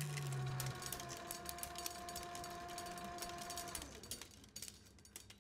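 The closing guitar music's last held notes ringing out and fading, dying away about four seconds in, over irregular light clicking.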